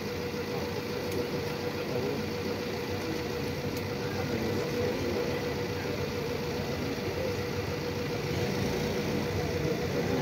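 Steady street background noise with a constant mechanical hum.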